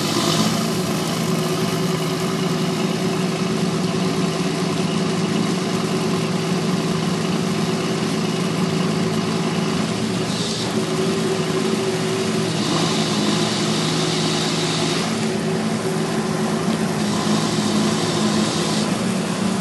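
Engine of a weed harvester boat running steadily, with a few passing stretches of higher hiss.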